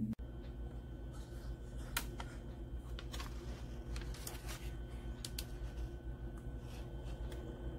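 Fetal monitor printout paper being handled, with a few short crinkles and taps over a steady low electrical hum.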